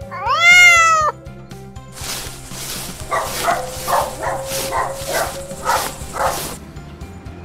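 A cartoon cat's meow, one loud call that rises and then falls, followed a couple of seconds later by a small dog yapping about nine times in quick succession, over light background music.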